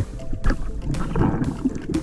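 Background music with a beat about twice a second.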